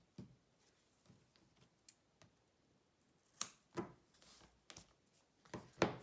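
Light crafting handling sounds: a scattering of faint clicks and a few sharper snips and scrapes as double-sided tape is laid along a chipboard spine, with the sharpest strokes in the second half.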